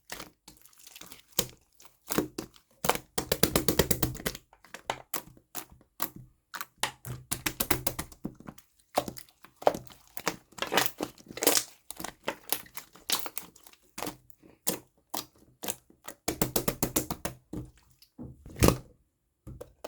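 Glittery jelly slime being squeezed and pressed by hand, giving runs of rapid wet clicks and pops with short pauses between handfuls.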